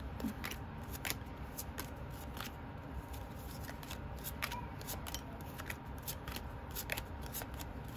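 A tarot deck being hand-shuffled without riffling: a steady run of soft, irregular card clicks and slides.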